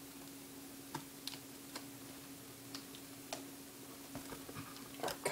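Scissors snipping at the camera's packaging: several sharp, irregular clicks, then louder rustling and handling of the packaging near the end, over a steady low electrical hum.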